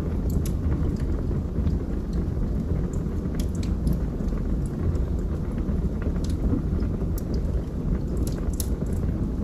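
Wood fire burning in a fireplace: a steady low rumble with scattered sharp crackles and pops, several close together near the end.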